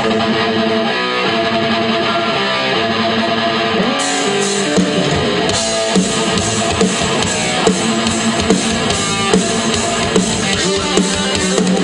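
Live rock band playing: electric guitar and drum kit, with steady, regular drum hits.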